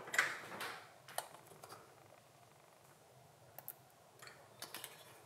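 Faint scattered clicks and a soft rustle from a small plastic food-colouring bottle being handled and squeezed over a bowl. A short hiss comes first, then single light clicks a few times.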